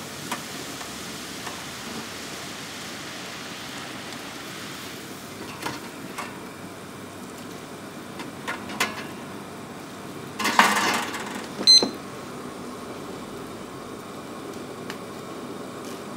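Water at a rolling boil bubbling steadily in an aluminium saucepan as broccoli florets are put in with metal tongs. There are scattered clicks and knocks of the tongs, a louder clatter about ten and a half seconds in, and a sharp metallic clink with a brief ring just before twelve seconds.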